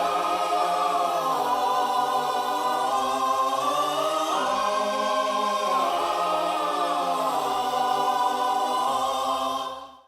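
Choral music with sustained sung chords that change every second or two, dropping away at the very end.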